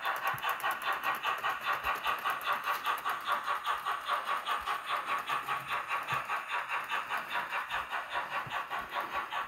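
Roco model freight train running on its track: a steady, even rhythmic rattle of about five beats a second.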